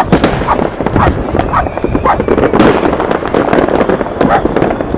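Fireworks: many rockets and firecrackers going off together in rapid, overlapping bangs and cracks that never let up.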